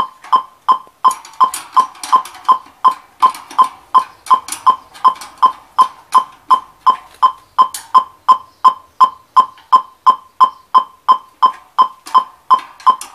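DirecTV satellite receiver's dish-pointing tone through the TV speaker: short beeps at one fixed pitch, about three a second, evenly spaced. The tone tracks signal strength while the dish is adjusted, here at a middling signal of about 48–49%.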